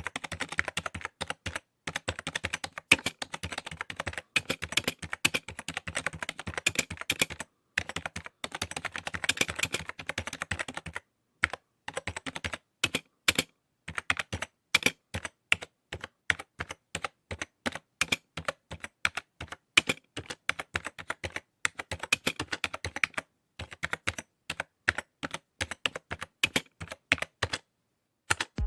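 Typing on a computer keyboard: quick runs of key clicks, broken now and then by short pauses.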